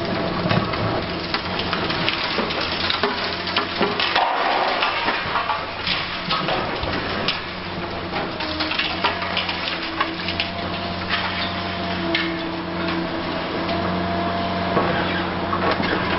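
Concrete and building debris crunching, cracking and clattering as a Liebherr R 960 high-reach demolition excavator tears into the structure, with a dense run of small impacts. The machine's diesel engine runs steadily underneath.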